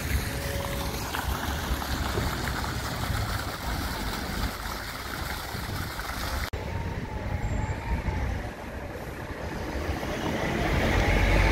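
Street traffic on a town street: a steady rumble of passing vehicles, with one vehicle's engine growing louder near the end.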